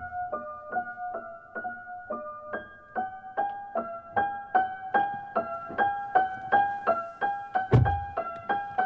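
Film-score music: a keyboard, piano-like, plays a steady figure of repeated notes about three a second, stepping up in pitch about three seconds in. A single deep thud sounds near the end.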